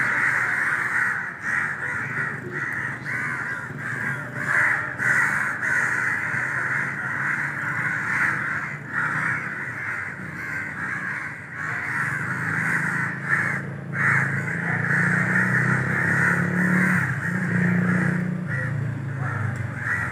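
Crow cawing over and over in quick succession, harsh calls following one another almost without pause. A low hum joins about halfway through.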